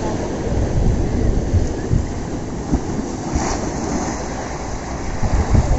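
Sea surf washing onto the beach, with wind buffeting the microphone in uneven low rumbles.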